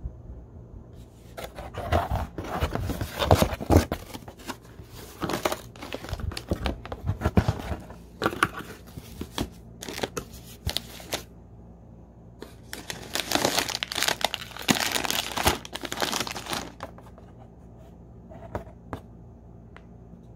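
Cardboard box being torn open along its tear-strip flap, with the plastic wrappers of the instant ramen packets inside crinkling as a hand moves them, in several spells of tearing and rustling.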